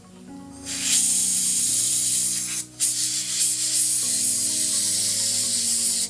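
Compressed-air blow gun hissing as it blows out the passages of a two-stroke chainsaw carburetor, in two long blasts with a brief break just under three seconds in.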